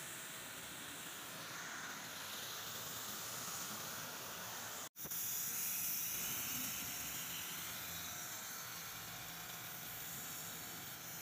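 Garden hose spraying and running water through an aluminium truck radiator to flush it, a steady hiss of water. It breaks off suddenly about five seconds in and comes back a little louder.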